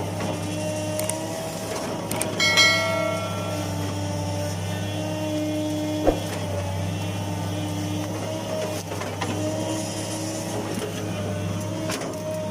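Hitachi UH045-7 hydraulic excavator's diesel engine running steadily, with a wavering hydraulic whine over it. A metallic clang rings out about two and a half seconds in, and a sharp knock comes near the middle.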